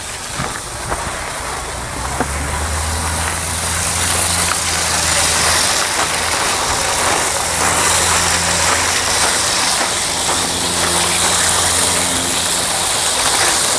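Two battery-powered Lego toy trains running on a wooden track: a steady low electric-motor hum that sets in about two seconds in, over a broad hiss of wheels rolling.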